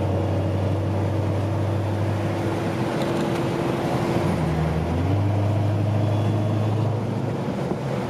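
Car engine and exhaust heard from inside the cabin while cruising on the road, a steady low drone. About four seconds in, the engine note dips briefly, then picks up again and holds.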